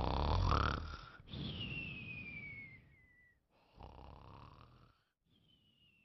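A person snoring, twice: each time a rasping snore on the breath in, followed by a thin whistle falling in pitch on the breath out. The first snore is the loudest.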